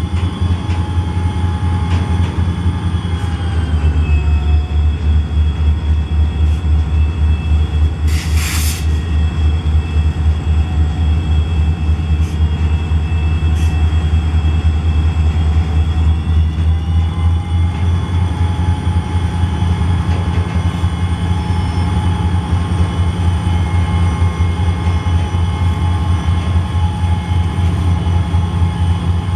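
Freight diesel locomotives, ELS 500 and a second unit, running at low speed close by: a loud, steady, pulsing engine throb with higher whining tones over it that shift in pitch twice. A short hiss about eight and a half seconds in.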